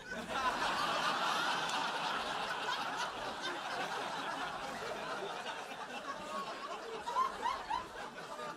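A large audience laughing together. It breaks out suddenly, is loudest in the first second or so, then slowly tails off.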